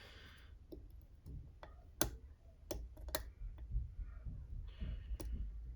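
Small sharp metallic clicks and light scraping from a hook pick working the barrel spool pins of an Assa 600 pin-tumbler lock under tension, irregularly spaced, several clearly louder than the rest. The clicks come from pins being lifted out of the core's matched counter milling or from the pick slipping off them.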